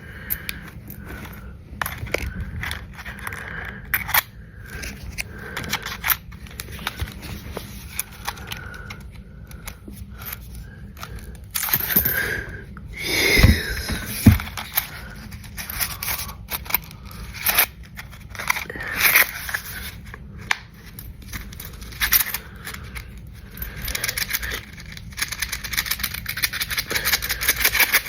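Pennies being handled and counted: rapid clicking and scraping of small coins, densest near the end, with a louder burst and a couple of thumps about halfway.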